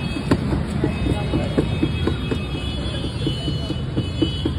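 Roadside street-stall ambience: a steady low traffic rumble, with a run of short, light taps or clinks at about four a second.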